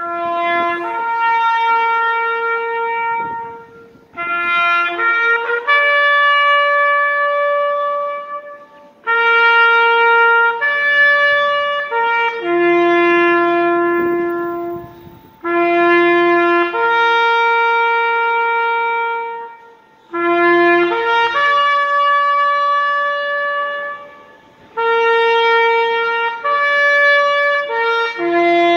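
Solo trumpet playing a slow, solemn call of long held notes, phrased in groups of a few seconds separated by short breaths.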